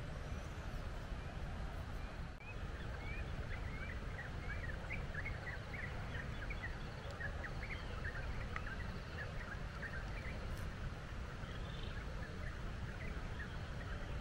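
Many birds chirping in quick, short notes over a steady low rumble.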